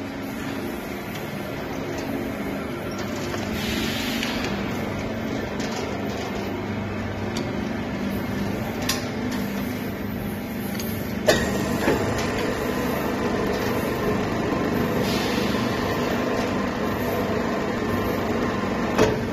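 Steady mechanical hum of slaughter-line machinery running in a large hall, with a few sharp metallic knocks, the loudest about eleven seconds in.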